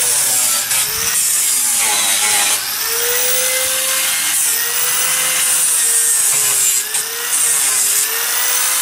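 Handheld power tool cutting into a laminated wooden beam, its motor pitch wavering as it bears into the wood, with a few brief easings off the cut.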